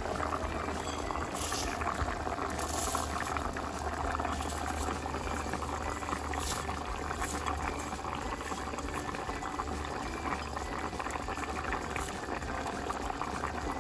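Seasoned rice broth boiling hard in a pan, a steady bubbling, as raw rice is poured into it.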